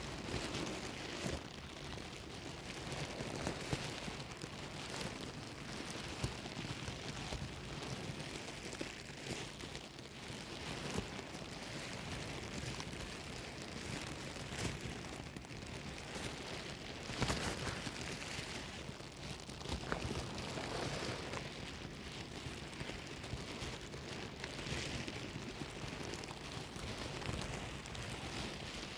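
A bag being rustled and crumpled: continuous crinkling and crackling, with sharper crinkles here and there, the loudest about two-thirds of the way through.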